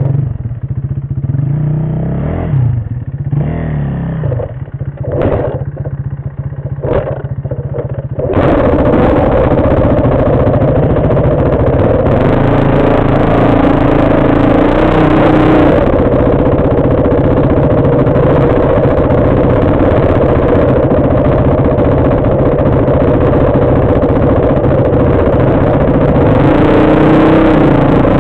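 Dirt bike engine revving up and down on a rough single-track trail. About eight seconds in, a loud steady rushing noise suddenly takes over, with the engine still running beneath it.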